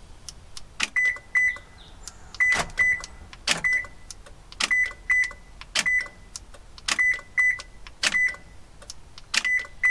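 Power door locks of a Lexus LX 470 clicking repeatedly as the door lock button is pressed again and again, about one clunk a second, many of them paired with a short high beep. This is a test of the freshly fitted lock motor, which seems to be working.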